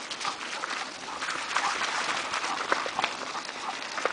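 Bicycle rolling fast over a gravel path strewn with leaves, towed by a running dog: a steady crunching hiss from the tyres with many small clicks and rattles throughout.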